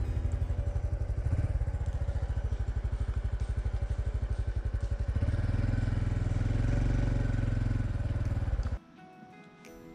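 Honda CT125 Hunter Cub's single-cylinder engine running at low speed as the bike rolls slowly, an even low pulsing beat that gets a little stronger about halfway through, then cuts off suddenly near the end.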